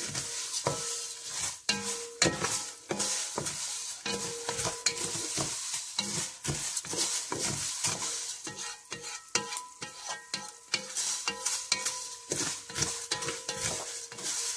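Vermicelli toasting in hot oil and ghee in a non-stick pot, sizzling steadily while a wooden spatula stirs it, with repeated scrapes against the pot about twice a second. The sound marks the vermicelli being browned to a golden colour.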